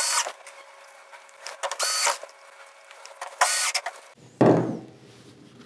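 Cordless drill driving a screw into the TV's power supply board, its motor whirring in two short runs, followed by a thump a little over four seconds in.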